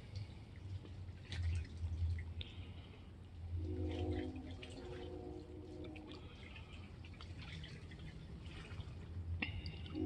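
Calm water lapping and trickling against mangrove roots and a sandy shore, with small drips and splashes. A distant train horn sounds a steady chord from about three and a half to six and a half seconds in.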